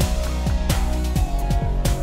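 Background music with heavy bass and a steady beat.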